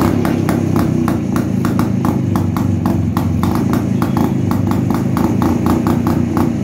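Rajdoot 175's single-cylinder two-stroke engine running steadily through a modified double-barrel silencer with its baffle and dB killer fitted. The note is soft, bassy and muffled, with a sharp crackle about four times a second.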